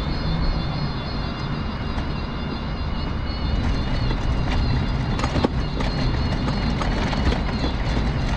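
Mobility scooter running along a paved footpath: a steady electric motor whine over the rumble of its wheels on the rough paving, with a few short knocks from bumps about five seconds in.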